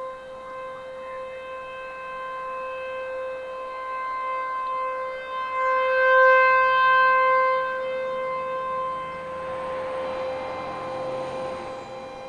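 American Signal T-128 outdoor warning siren sounding one steady pitch with overtones. It grows louder to a peak about halfway through and fades again as its rotating head sweeps past. A rushing noise rises under it near the end.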